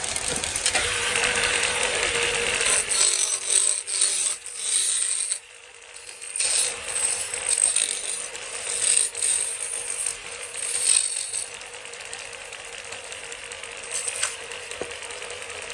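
Factory machinery running with rapid mechanical clicking and rattling over a steady hum. The clatter cuts out for about a second roughly five seconds in, comes back busier, then settles to a quieter, steadier run near the end.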